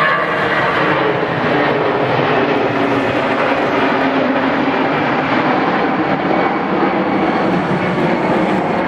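The four CFM56-5C turbofans of an Airbus A340-300 at climb power just after takeoff: a loud, steady jet roar whose upper hiss dulls gradually as the airliner climbs away.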